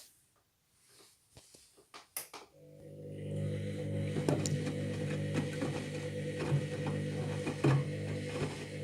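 A few faint clicks, then a little under a third of the way in a Candy washing machine's pump starts and hums steadily, with knocks and water noise from the drum. This is the pump-driven water spray the machine does on a light pre-wash load, which the owner classes as a bit of a power stream.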